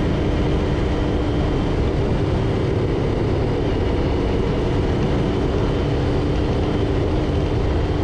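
Vehicle driving along a road at steady speed: an even engine hum under a constant rush of road and wind noise.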